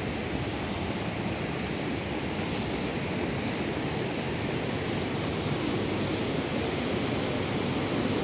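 Fast mountain river rushing over rapids: a steady roar of white water.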